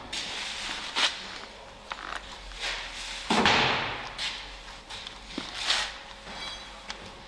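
Hands fitting a rubber seal and piston into a brake caliper held in a bench vise: small clicks and knocks, with a louder rubbing scrape about three seconds in.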